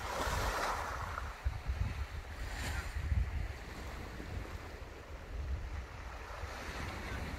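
Wind buffeting the microphone in gusts, with small waves washing up the shingle beach. One wash runs for about a second at the start, and a shorter one comes about two and a half seconds in.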